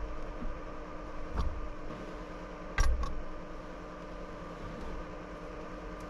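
A steady machine hum with several fixed pitches, broken by a few sharp knocks, the loudest about three seconds in.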